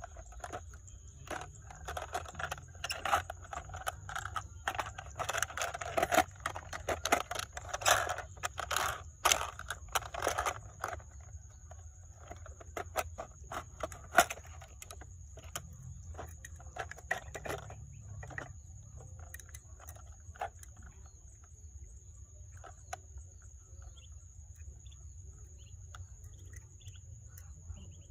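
Toy cars being handled: a busy run of small hard clicks, clatters and scrapes for about ten seconds, then only scattered clicks, over a faint steady high whine.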